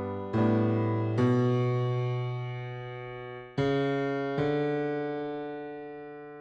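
Piano-style keyboard playing slow hymn chords, four struck in all, each held and left to fade away.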